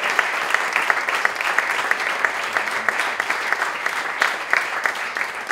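An audience in a lecture hall applauding, a steady patter of many hands clapping.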